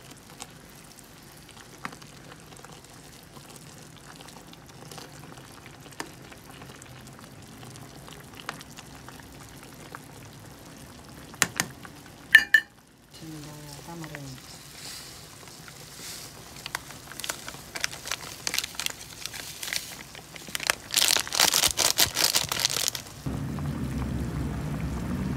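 A pot of sinigang soup, packed with vegetables, bubbling on the boil: a soft crackling that grows denser and louder in the second half, with a few sharp clatters about halfway. Background music comes in near the end.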